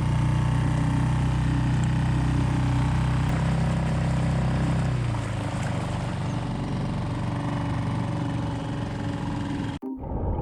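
A sailing yacht's inboard engine running steadily under way. Its low hum thins out about halfway through, and the sound cuts out abruptly for a moment near the end.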